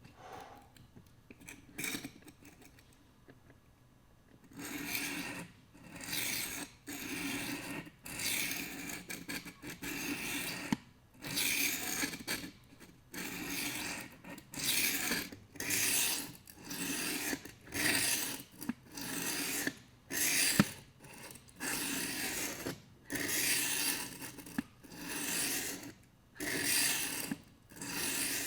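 Sharpening stone on a guided Edge Pro-style sharpener scraping back and forth along a knife edge wet with soapy water, in steady strokes about one a second. The strokes begin a few seconds in, after a short quiet spell.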